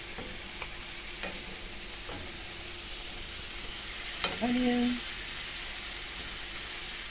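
Pieces of hedgehog fish (puffer fish) frying in melted butter in a pan with a steady sizzle. A wooden spatula clicks against the pan a few times as the pieces are turned.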